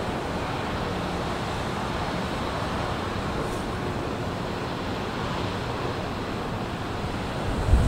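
Steady rumble and hiss of the Ro-Ro car ferry Oita's engines running as she berths, with a buffet of wind on the microphone near the end.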